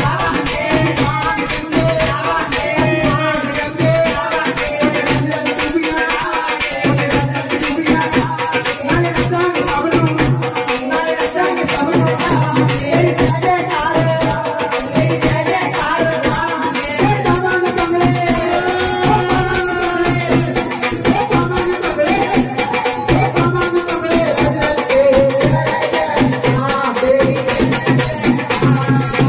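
Hindu devotional kirtan: a woman sings a bhajan into a microphone over a drum keeping a steady beat and shaken hand percussion.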